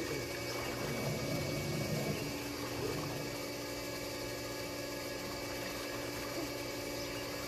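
Steady hum of an above-ground pool's filter pump, with light water splashing from a swimmer.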